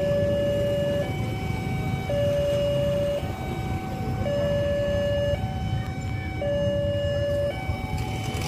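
Two-tone electronic siren alternating between a lower and a higher note about once a second, steady in pitch, over the low rumble of a slow-moving diesel locomotive.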